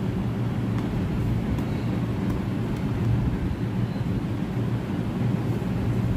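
A steady low drone hums in the background, with a few faint light clicks and scratches of a fingernail picking at the clear seal sticker on a phone box.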